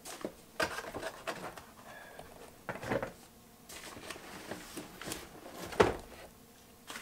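Cardboard box and paper packaging being handled: rustling with scattered short knocks and taps, the sharpest about six seconds in.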